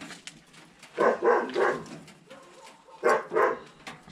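A dog barking in double barks, twice: one pair about a second in and another about three seconds in.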